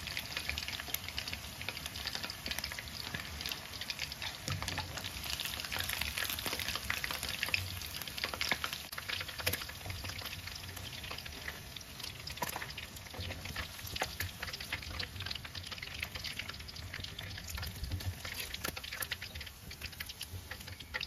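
Chicken wings deep-frying in oil in a steel wok on full heat, a steady crackling sizzle with scattered sharper pops. The high heat at the end of frying drives the oil out of the chicken before it is taken out.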